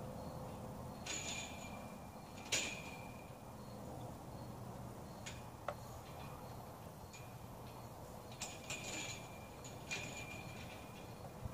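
Steel tubing of a greenhouse truss frame clinking and clanking as it is handled and fitted overhead: about eight sharp metallic knocks, each with a short ring, several in quick succession about three-quarters of the way in.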